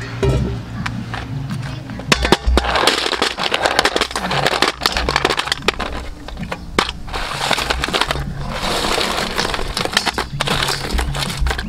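Shells clattering and knocking in a stainless steel bowl as river snails, mussels and then live crabs are tipped off a metal tray onto them, with many sharp clicks and rattles.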